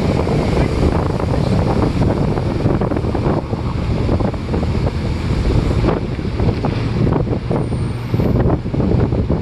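Wind buffeting the microphone on the open top deck of a moving tour bus: a loud, gusty rush, with the bus and traffic running underneath.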